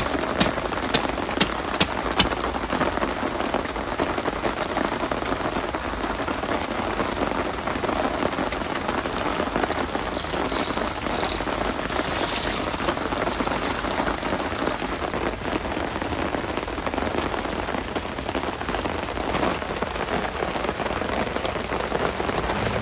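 Heavy rain pouring down steadily, with a quick run of sharp taps in the first two seconds.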